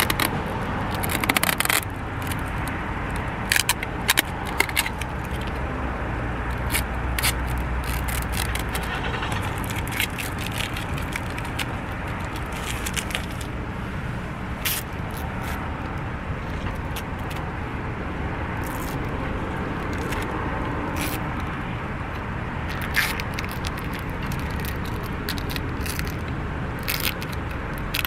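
Packing tape and a package being handled: scattered crackles and scraping clicks over a steady low rumble.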